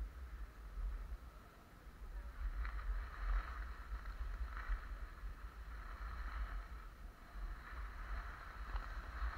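Skis hissing and scraping over snow during a downhill run, in uneven swells with a few sharper scrapes. Wind rumbles low on the microphone throughout.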